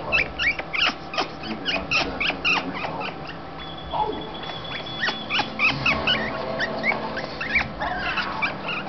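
African grey parrot squeaking: a rapid string of short, high squeaks, several a second, turning into more varied chirps partway through.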